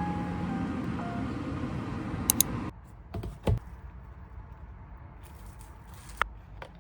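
Soft background music that cuts off suddenly a little under three seconds in, leaving a quiet room with a few light clicks and taps.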